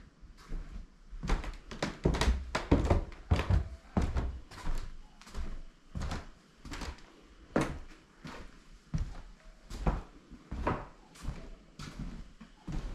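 Footsteps thudding on the wooden floorboards of an old wooden school building. The heavy steps come close together at first, then settle into an even walking pace of about one step every three-quarters of a second.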